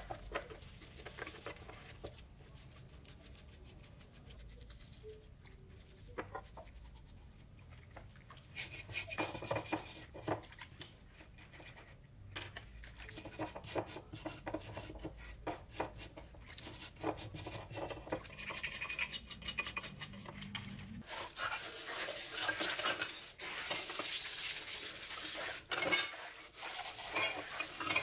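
A brush scrubbing a greasy metal chainsaw housing in rapid, uneven strokes. About three-quarters of the way through it gives way to water running and splashing over the parts as they are rinsed off.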